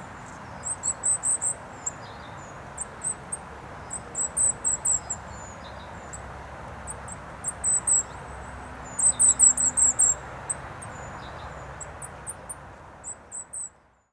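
Goldcrest singing: phrases of very high, thin, rapid notes repeated several times, over a steady hum of road traffic. The sound fades out near the end.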